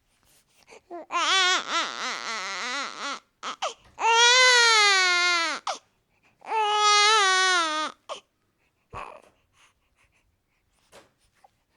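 Newborn baby crying: three cries, the first wavering up and down, the second higher and falling away at its end, the third steadier, with short gaps between them and only faint small sounds after the last cry.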